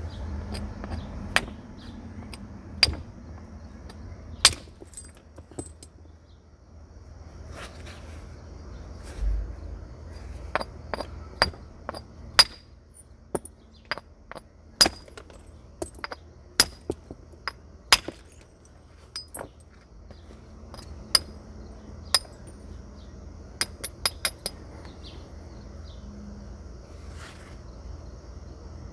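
Flint being knapped with a natural percussion tool: sharp, clinking strikes on a raw flint nodule at uneven intervals, some in quick clusters, as it is reduced toward a biface.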